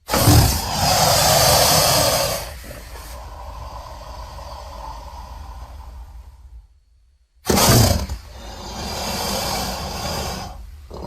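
Two roars of a designed Suchomimus dinosaur sound effect, made from crocodilian calls and pitched-down cougar sounds. The first starts suddenly and is loud for about two and a half seconds, then trails into a quieter low rumble. The second comes after a short silence, about seven and a half seconds in.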